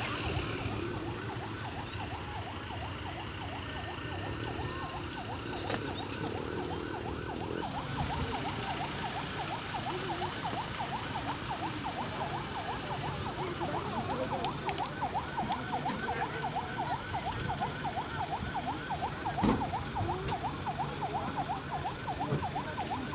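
Vehicle siren on a rapid yelp, its pitch rising and falling about three times a second without a break.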